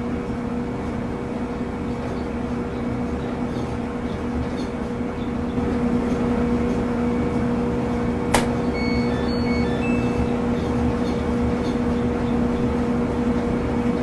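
Microwave oven running: a steady electrical hum with a low drone, growing a little louder partway through, with a single sharp click about eight seconds in.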